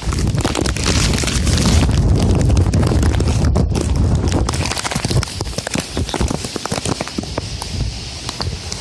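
Tropical storm wind buffeting the microphone in a heavy low rumble, strongest over the first five seconds and then easing, with wind-driven rain ticking and crackling on the microphone throughout.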